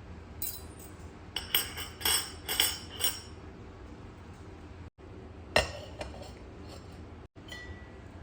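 Glass and dishware clinking: a quick run of clinks and taps, then one louder single clink a few seconds later.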